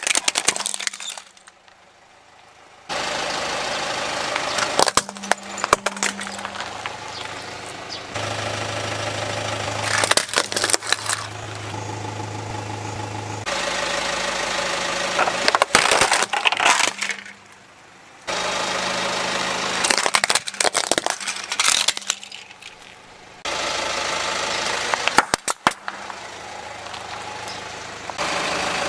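Plastic toys, such as toy trucks and small hollow plastic balls, cracking and crunching under a slowly rolling car tyre, over a car engine's steady hum. The sound cuts abruptly every few seconds from one crush to the next.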